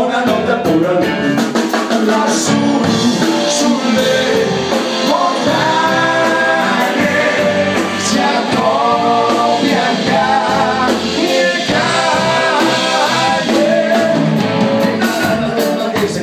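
Live rock band playing: electric guitar, bass guitar and drums, with a man singing over them.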